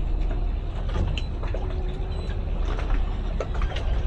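Boat engines idling with a steady low rumble, with scattered light clicks and knocks.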